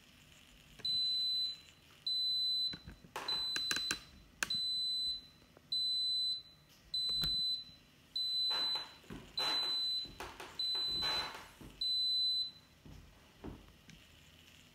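Instant Pot Smart WiFi 60 electric pressure cooker beeping ten times, a high single-tone beep about every 1.2 seconds, as its cook timer reaches zero: the signal that the pressure-cooking cycle has finished.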